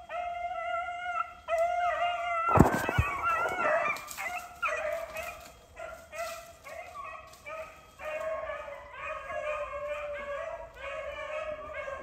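A pack of beagles baying while running a rabbit, several dogs giving long, overlapping cries. About two and a half seconds in, two sharp cracks half a second apart are the loudest sound.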